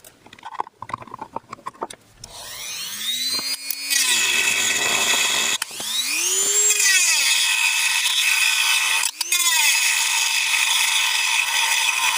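Light handling clicks, then about two seconds in a high-speed handheld power tool starts and grinds away the sticky epoxy on the plastic speaker box. Its motor whine rises as it spins up and falls as it slows, and it cuts out and restarts twice.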